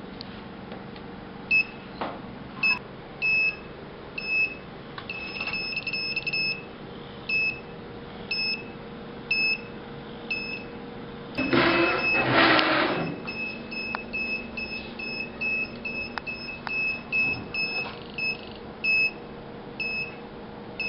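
Piezo buzzer on an Arduino-controlled model train sounding short, high-pitched beeps at uneven spacing, the warning set off when its ultrasonic sensor detects an object in front of the train. A burst of noise a little past halfway is the loudest sound, and a faint steady hum runs underneath.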